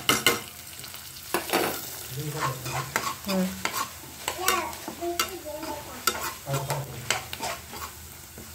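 A steel spoon scraping and knocking against a non-stick kadhai in many short strokes, stirring ground spices into onions frying in hot oil, with a sizzle underneath.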